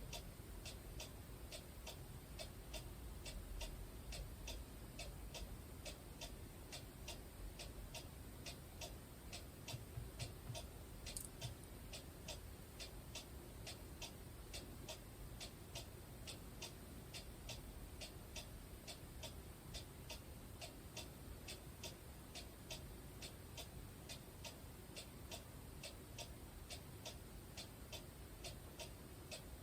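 A clock ticking steadily and faintly, about two ticks a second.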